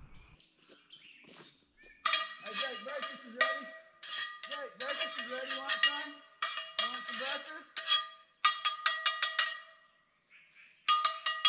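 Metal objects clanking and rattling with a bell-like ring, in irregular bursts of sharp strikes for several seconds after a quiet start, and again briefly near the end.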